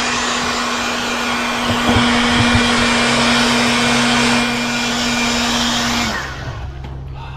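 A small electric motor running steadily, with a hum and a rush of air, then switched off and winding down about six seconds in.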